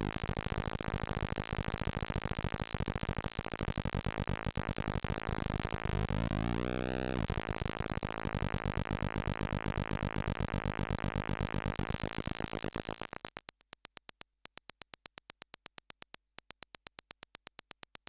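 Mimsy, a DIY stepped tone generator built on the Forrest Mims design (the Atari Punk Console), putting out harsh buzzing square-wave tones. There is a rising pitch sweep about six to seven seconds in. Near the end the tone gives way to a fast, even train of clicks.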